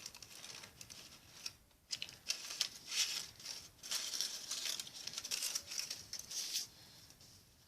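Irregular rustling and crinkling of wrapper and small plastic parts as a Kinder Surprise egg's toy capsule and its contents are handled and unwrapped.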